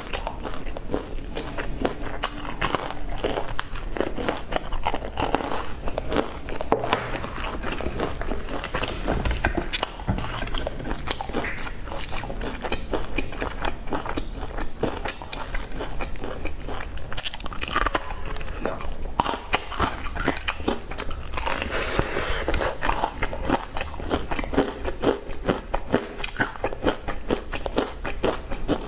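Bites into crispy deep-fried chicken cutlet and chewing, the breaded crust crunching and crackling again and again.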